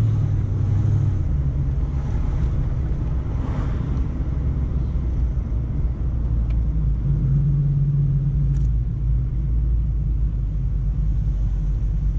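1994 Ford Mustang GT's 5.0-litre V8 running under way, heard from inside the cabin as a steady low drone with road rumble.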